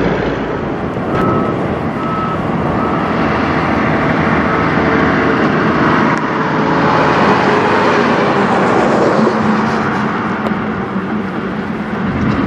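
Western Star semi trucks hauling loaded grain hopper trailers drive by: diesel engines running with tyre and road noise. It is loudest as one truck passes close about two-thirds of the way through, then drops in pitch and fades as it moves off.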